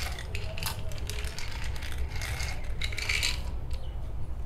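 Leptaden tablets rattling and clicking against plastic as they are tipped out of a plastic pill bottle into its cap, in a run of short bursts that is busiest a little after the middle.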